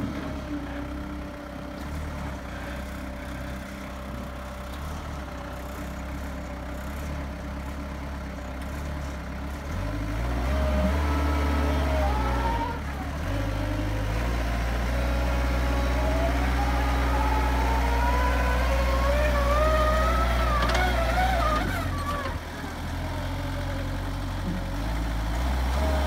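Bobcat B300 backhoe loader's diesel engine running, revving up about ten seconds in as the machine drives and holding the higher revs until near the end, with a brief dip in between. A wavering high whine climbs in pitch over several seconds midway.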